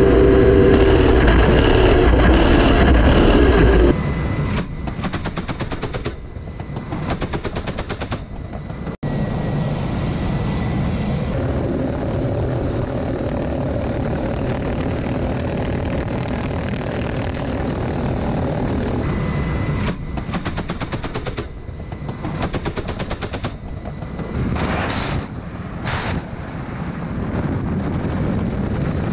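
Russian attack helicopters in flight: steady turbine and rotor noise, broken by repeated bursts of rapid automatic cannon fire, with two short rising whooshes near the end.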